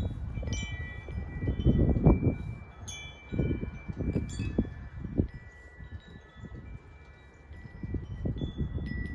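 Wind chimes ringing irregularly, several pitched notes sounding at different moments and ringing on, over gusts of wind rumbling on the microphone that ease off past the middle and build again near the end.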